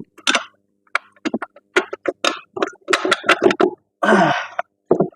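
A man's short grunts, strained vocal noises and chuckles, a quick run of separate bursts with a longer one about four seconds in, as he strains to get a strut bolt into place.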